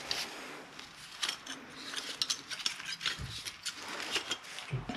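Irregular light metallic clicks and clinks of hand tools and brake parts being handled, with dull thumps about three seconds in and again near the end.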